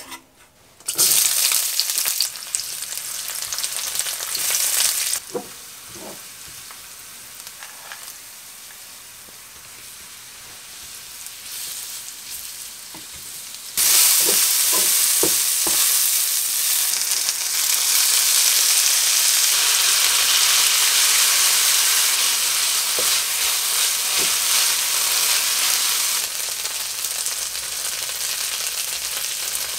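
Sliced garlic and mushrooms sizzling in hot olive oil in a nonstick frying pan, stirred with a wooden spatula that knocks against the pan a few times. The sizzle starts loudly about a second in as the food goes into the oil, dies down for a while, then comes back loud about halfway through.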